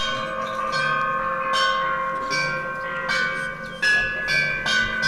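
Metal sound sculpture "Interleg Sounds" struck repeatedly in a free improvisation. Sharp bell-like strikes come about once or twice a second, and several pitches ring on and overlap between them.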